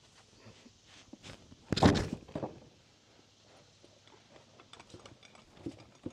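A heavy wooden thunk about two seconds in, with a few lighter knocks and taps around it: framing lumber being handled and set against the deck joists while flat blocking is fitted.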